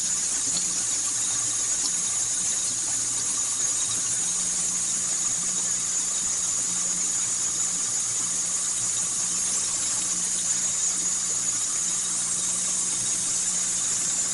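Kitchen sink garbage disposal running steadily with a low motor hum, under the steady hiss of hot tap water pouring into it.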